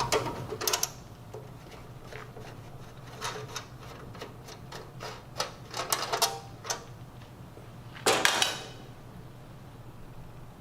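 Scattered clicks and light taps of a screwdriver and screws being worked on the sheet-metal bottom cover of a two-sided commercial grill, with a longer scrape about eight seconds in.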